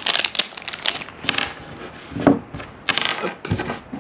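Handling noise in irregular bursts: crinkling of plastic packaging and light knocks as a plastic 4G roof antenna, its cables and small parts are handled on a wooden worktable.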